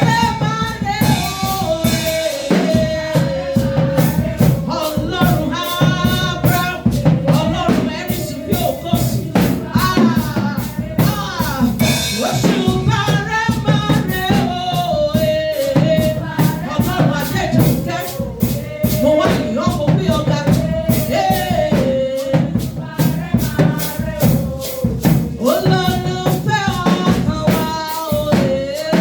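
Worship music: a solo voice sings a flowing melody over a steady drum beat with shakers.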